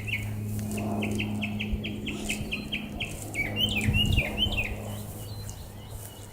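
A songbird singing a fast series of short repeated chirps, switching to a phrase of sliding notes about three seconds in, over a steady low hum.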